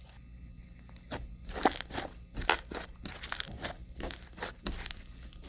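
Bead-filled slime being squeezed and worked by hand, crunching with many irregular small crackles and pops.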